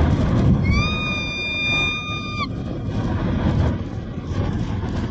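Heavy rumble of a rushing surge of water and debris. A single high-pitched tone rises briefly, holds steady for about two seconds near the start, then cuts off sharply.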